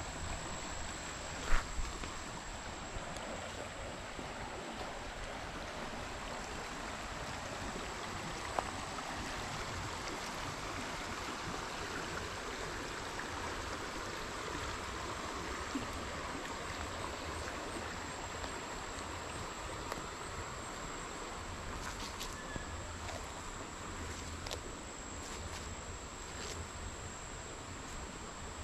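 Spring-fed stream water flowing steadily, with a thin, steady high insect tone over it. A sharp click about a second and a half in.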